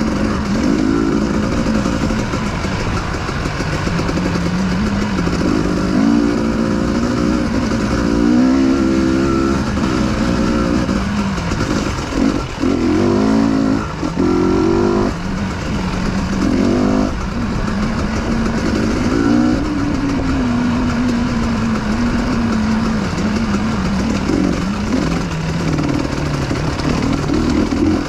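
Dirt bike engine running under way, its pitch rising and falling with the throttle, with several quick revs about halfway through.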